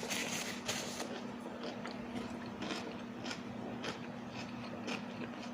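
A person chewing food close to the microphone, with short crisp clicks and crunches every half second or so, over a faint steady low hum.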